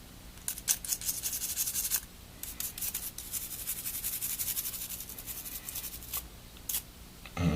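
Soft-bristled toothbrush wet with alcohol scrubbing the corroded speaker contact of a Samsung Galaxy S3. Quick scratchy brush strokes come in two runs, with a short break about two seconds in, and stop about six seconds in.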